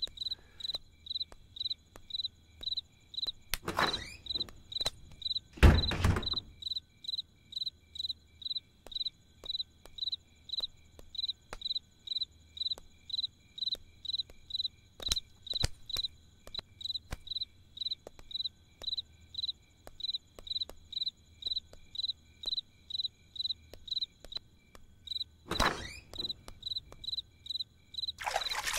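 A cricket chirping steadily, about two chirps a second. A heavy thud comes about six seconds in, with a few lighter knocks around it.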